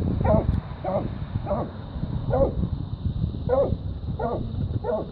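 A dog barking repeatedly at a raccoon: about eight short barks, roughly half a second to a second apart, over a steady low rumble.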